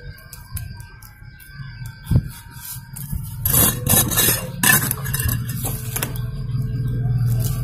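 Hands patting and rubbing damp soil packed over the roots in a plastic pot, with rough scraping and a knock against the pot's hard rim. The scraping is loudest in the middle, and a low rumble builds in the second half.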